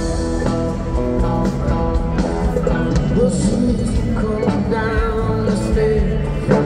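Live rock band playing a concert set, with electric guitar over bass and drums.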